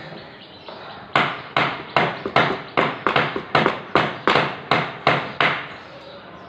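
A hammer striking wood in furniture repair work: about a dozen sharp blows in quick succession, roughly three a second, starting about a second in.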